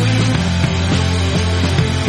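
Background music: an instrumental stretch of a song between sung lines, with a steady bass line that changes note about a third of a second in and again near the end.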